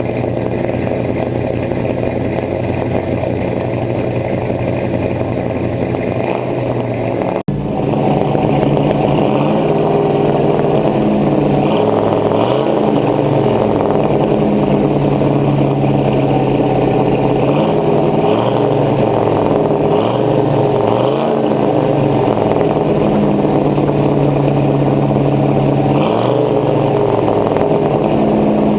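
1953 Chevrolet 3100 pickup's inline-six engine idling steadily through its exhaust, with a momentary break about seven seconds in. After that it is revved several times, the pitch rising and falling back to idle.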